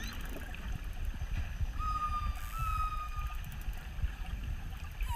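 Orca whistles and echolocation clicks over a steady low rumble: rapid click trains near the start and again around the middle, one long steady whistle in the middle, and a falling whistle near the end.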